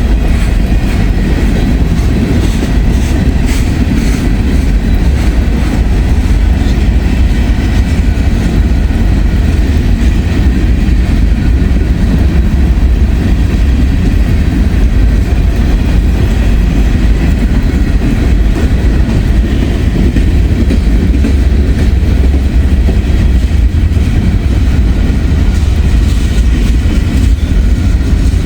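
Freight train cars rolling past close by: a loud, steady low rumble of steel wheels on rail.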